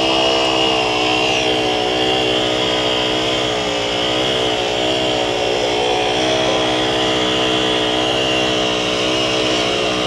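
Heavy diesel engine of a concrete truck running steadily at raised revs while concrete is pumped, its pitch wavering only slightly, with a faint steady high whine above it.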